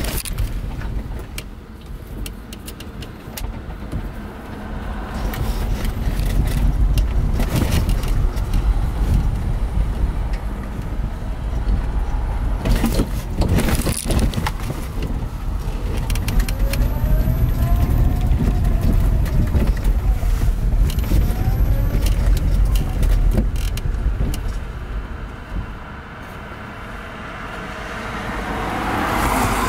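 Cabin noise inside a ZEV Electric T3-1 three-wheeled electric trike driving on rough, broken road: a low rumble of tyres and suspension with knocks and rattles over bumps, a cluster of them about halfway through. A faint whine rises and falls in pitch several times in the second half, and the rumble eases for a while shortly before the end.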